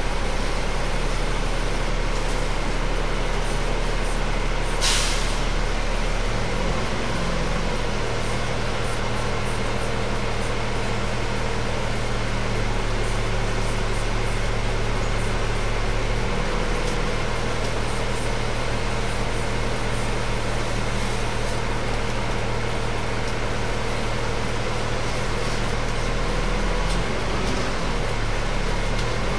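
Bus engine and drivetrain heard from inside the passenger cabin while the bus is under way, a steady hum whose pitch changes in steps a few times. A short, sharp hiss of compressed air comes about five seconds in, typical of the air brakes.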